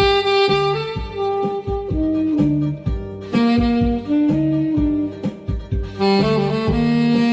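Saxophone playing a Korean trot melody of long held notes over a backing track with bass and a steady drum beat.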